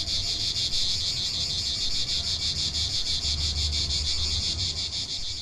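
Insects chirring in a steady, rapid, high-pitched pulse over a faint low rumble, starting to fade near the end.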